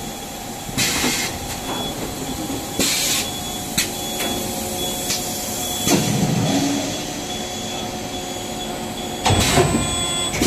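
Powerjet EB180U extrusion blow moulding machine running through its cycle: a steady mechanical hum, two short hisses of air about a second and three seconds in, a few sharp clicks, a low thump around six seconds and a heavy clunk near the end.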